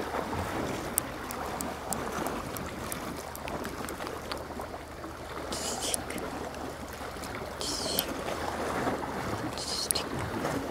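Sea waves washing on the shore in a steady wash, with a few short soft hisses about halfway through and again near the end.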